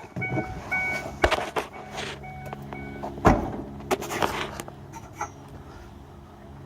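Truck door opened and shut with knocks and clunks, the loudest about three seconds in, while a warning chime beeps several times in the first few seconds. The truck's engine runs steadily underneath.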